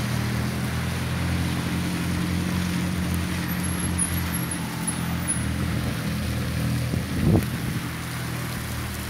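Cars driving slowly past on a wet road: a low engine hum over the hiss of tyres on wet tarmac, the hum fading about five seconds in. There is a brief thump about seven seconds in.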